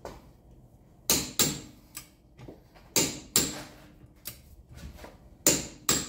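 Click-type torque wrench on a car wheel's lug nut, clicking sharply in three pairs about two seconds apart, the sign that the nut has reached the set torque.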